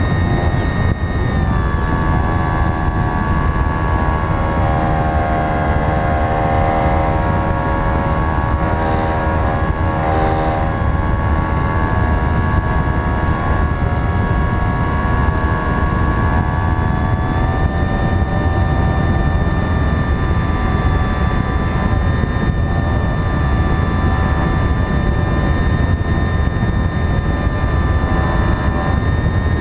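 Radio-controlled model aircraft's motors and propellers running steadily, heard from the onboard camera with wind noise underneath. There is a constant high whine, and the engine note shifts slightly with throttle changes about two seconds in and again around seventeen seconds in.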